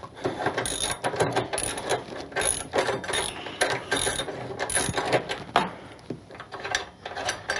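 Ratchet wrench with a 3/4-inch socket clicking rapidly as the top nut of a Harley Dyna rear shock is spun off; the clicking runs for about five seconds, then eases to a few scattered clicks.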